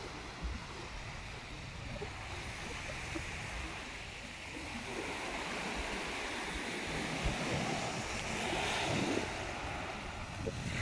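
Small waves breaking and washing up onto a sandy beach: a steady surf hiss that grows louder about halfway through, with low rumbles of wind on the microphone.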